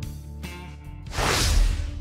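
Background guitar music, with a whoosh sound effect that swells up about a second in and fades away.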